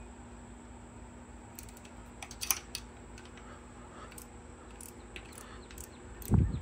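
Small scattered clicks and taps of bolts being threaded by hand and tools touching metal on an engine, with a loud low thump near the end.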